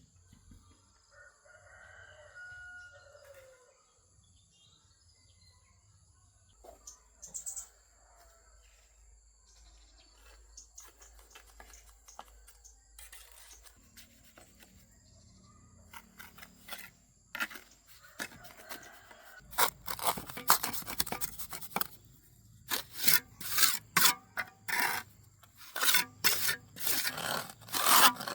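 A rooster crows once, a couple of seconds long. About two thirds of the way through, loud rapid scraping strokes of hand work start and are the loudest sound.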